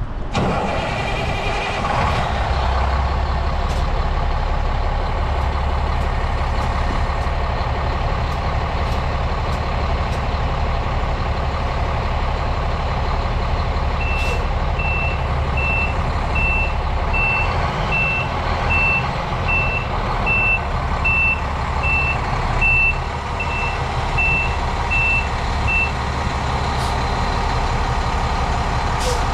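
2007 International 7600 water truck's diesel engine running steadily. About halfway through, its reverse alarm starts beeping evenly, about one beep every 0.8 seconds, for roughly twelve seconds: the truck is backing up.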